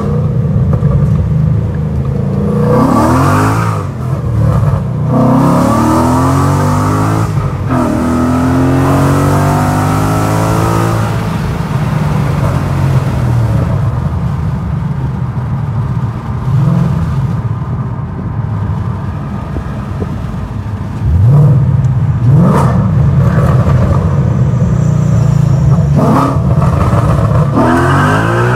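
2013 Ford Mustang GT's 5.0 Coyote V8 through long-tube headers, a catted X-pipe with resonator delete and a Magnaflow Street Series axle-back, heard from inside the cabin while driving. The engine pulls up through the revs three times, breaking off about 4 and 7.5 seconds in as it changes gear, then settles to a steady cruise. About 21 seconds in it revs up sharply and runs louder under acceleration until near the end.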